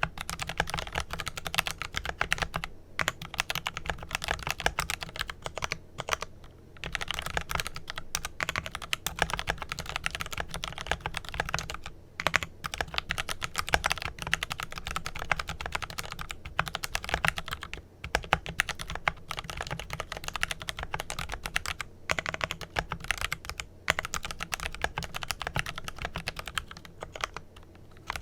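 Steady fast typing on a Glorious GMMK Pro mechanical keyboard with lubed Kailh Pro Purple tactile switches and PE foam dampening, a dense run of keystroke clacks broken by brief pauses every few seconds.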